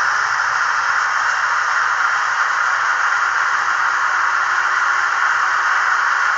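Steady, even hiss from a Trix HO-scale BR 140 model electric locomotive running slowly on the track, with a faint low hum that comes in about halfway.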